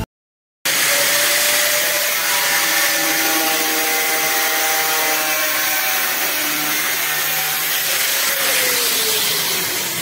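Angle grinder with a thin cutting disc running and cutting through a white plastic sheet: a loud, steady whine with a hiss. Its pitch sinks over the last second or so as the motor slows.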